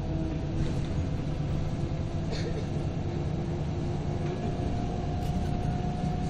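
Scania L94UB bus under way, heard from inside the cabin: a steady low diesel engine rumble with the whine of its ZF automatic gearbox as a thin steady tone that rises slightly in pitch about four seconds in.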